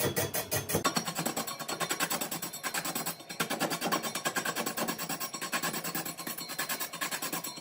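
Background music with a fast, even beat. The sound changes abruptly about a second in.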